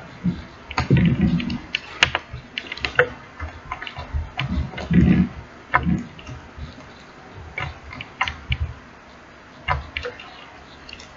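Hands kneading and squishing a slime with foam beads in it, making irregular sticky clicks and small pops.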